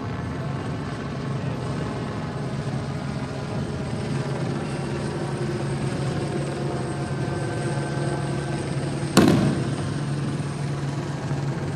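Steady low engine drone, with one sharp loud bang about nine seconds in that rings off briefly.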